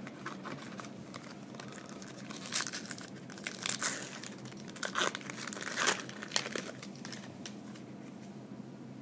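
Wrapper of a 2012 Upper Deck SP Authentic card pack crinkling and tearing as it is opened by hand, in a run of crackly bursts from about two and a half to six and a half seconds in.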